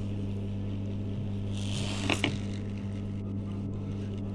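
Hot-air rework station blowing a steady stream with a low hum, heating a new USB Type-C charging jack to seat its solder onto the phone's circuit board. About two seconds in there is a brief louder hiss with a couple of clicks.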